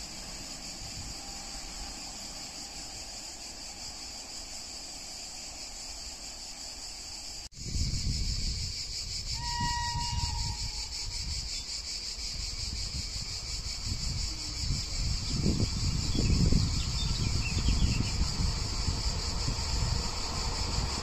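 Cicadas buzzing steadily in summer heat, with a train approaching from the distance: its low rumble builds up over the second half. A brief distant tone sounds about ten seconds in.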